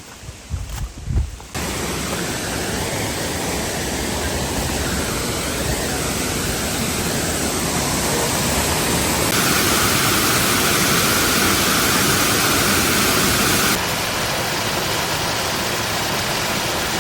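Steady rushing of a waterfall that starts abruptly about a second and a half in, after a few low bumps. Its tone shifts suddenly twice.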